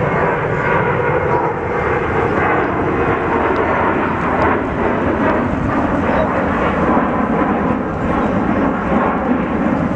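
Jet airliner engines at high power: a steady, loud rushing noise from an airliner climbing out after takeoff.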